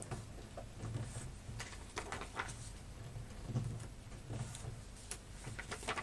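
Sheet of origami paper being fan-folded by hand on a tabletop: irregular small creasing crackles, rustles and light taps of paper and fingers against the table.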